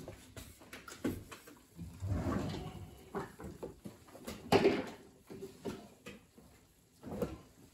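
Kitchen oven door being pulled open on its hinges, with a few clunks and rattles; the loudest is a sharp clunk about halfway through.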